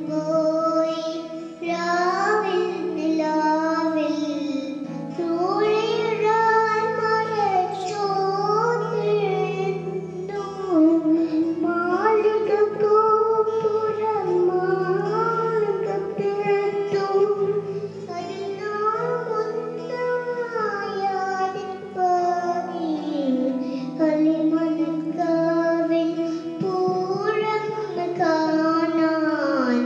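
A young boy singing a Malayalam song into a handheld microphone, in long held and gliding phrases over steady held chords of an accompaniment.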